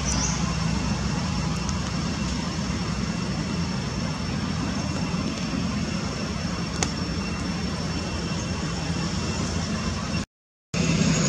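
Steady outdoor background noise: a low engine-like rumble under a thin, steady high-pitched drone, with a brief cut to silence near the end.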